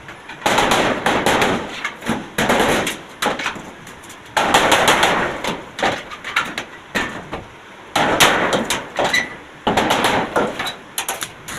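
Metalwork on a steel gate: irregular bursts of crackling noise, each a second or two long, broken by sharp metallic knocks.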